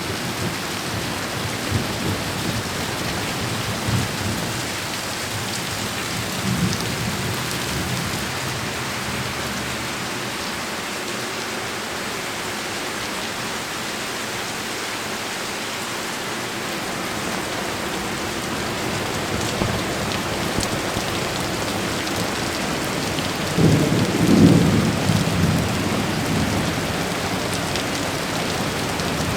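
Heavy rain falling steadily throughout, with thunder: a few low rumbles in the first several seconds, and a louder rolling rumble about three-quarters of the way through that dies away over a couple of seconds.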